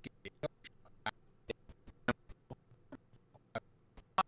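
Irregular sharp clicks of computer keys and a mouse being worked, about four a second, the loudest one near the end.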